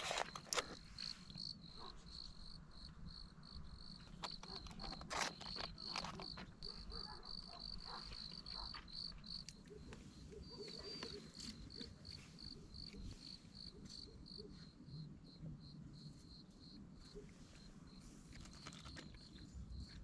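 Crickets chirping in a steady, evenly repeating high pulse, with scattered clicks and rustles over it.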